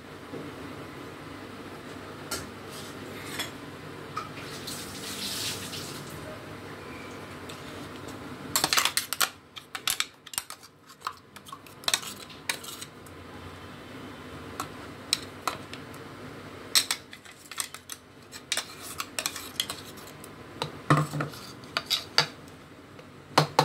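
A spoon scraping and tapping against a mixer jar and a glass bowl as thick ground tomato chutney is spooned out, with irregular clusters of sharp clinks and knocks from about eight seconds in and again near the end.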